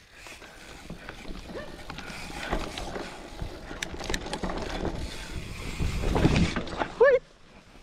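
Mountain bike riding over a bumpy grassy dirt trail: tyre and trail noise with rattling clicks from the bike, and wind on the microphone, growing louder toward the end. A brief shout near the end.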